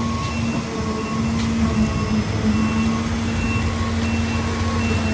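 Heavy construction machinery running steadily with a low drone, while a reversing alarm beeps over it at a regular pace of about one and a half beeps a second.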